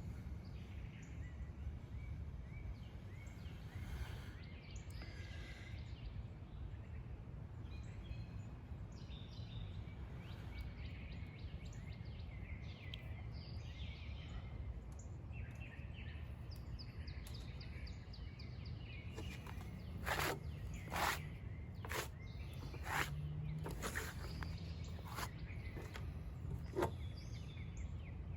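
Outdoor ambience: small birds chirping now and then over a steady low rumble. In the last third, a series of sharp pops or clicks comes roughly once a second.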